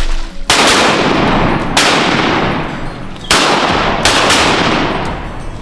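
Shotgun blasts, about five shots in four seconds. Each is a sharp report with a long echoing tail, and the last two come close together.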